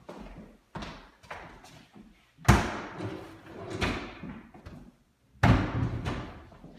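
Doors banged shut: two loud slams about three seconds apart, each ringing on briefly, with lighter knocks before them.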